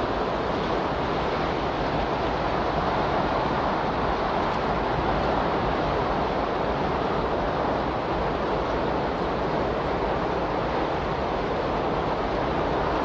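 Steady, unchanging rushing noise with no rhythm or pauses: the masking sound bed of a subliminal audio track.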